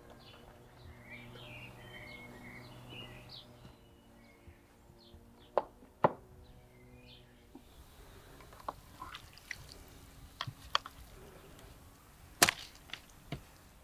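Two sharp wooden knocks as a wooden serving board loaded with boiled lamb fat tail is set down on a table, then lighter clicks and knocks from handling the meat and knives on wooden cutting boards, one louder knock near the end. Birds chirp during the first few seconds.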